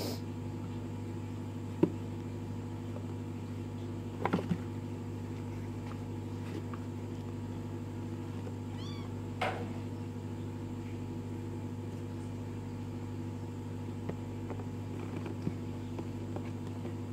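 Kittens meowing briefly a few times while playing on a cardboard box, with a few short knocks, over a steady low hum.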